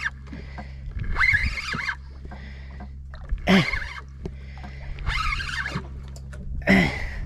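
A boat engine running steadily, with a person's short straining grunts and heavy breaths every second or two while fighting a fish on a jigging rod.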